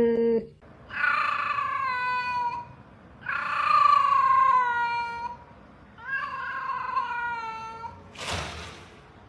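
A cat giving three long, drawn-out meows, each sliding slightly down in pitch, followed by a brief rushing noise near the end.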